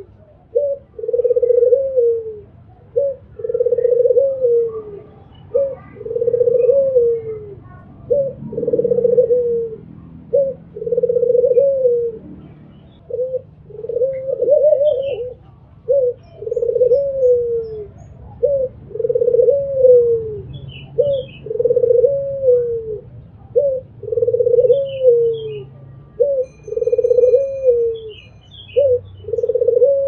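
Albino Barbary dove (white ringneck dove) cooing over and over in its call. Each coo is a short note followed by a longer falling note, repeating about every two seconds.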